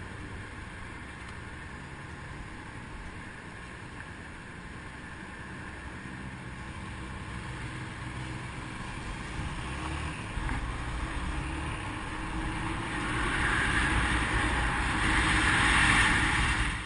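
Motorcycle engine pulling away from a stop and accelerating, with wind rushing over the microphone growing steadily louder as speed builds, then cutting off suddenly near the end.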